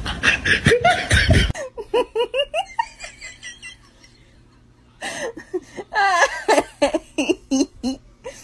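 People laughing in quick repeated bursts, dying down to a quiet stretch about four seconds in, then breaking out into loud laughter again.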